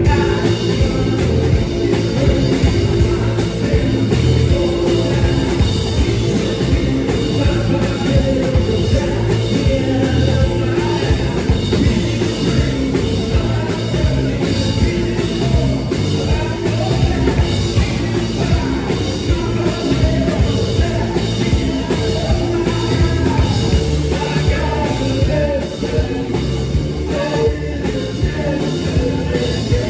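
A live rock band playing loud, with a steady drum beat, electric guitar and singing.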